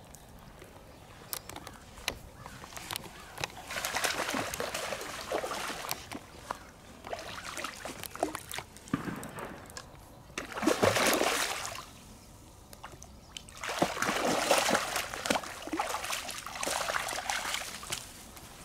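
Hooked channel catfish splashing and thrashing in shallow water at the bank as it is reeled in and landed. There are three spells of splashing, the loudest near the middle.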